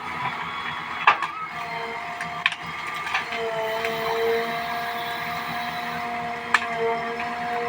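JCB backhoe loader's diesel engine running steadily while working, with a steady whine and a few sharp metallic clanks, about three in all.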